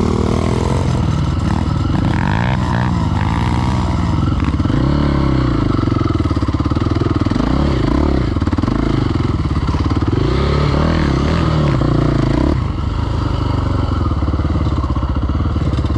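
KTM 525 XC quad's single-cylinder four-stroke engine running under way, revving up and down over rough ground, with a small pit bike engine running alongside. The revs drop back about twelve seconds in.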